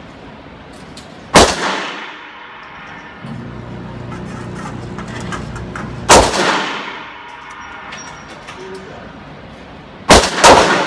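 Handgun firing aluminum-cased Federal ammunition in an indoor range booth: single shots about a second and a half in and about six seconds in, then two quick shots near the end, each leaving a ringing echo.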